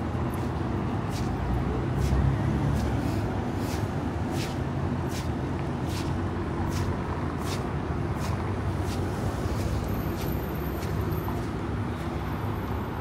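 Street traffic running steadily, a low rumble of passing cars and buses, with light footsteps of someone walking at about one and a half steps a second.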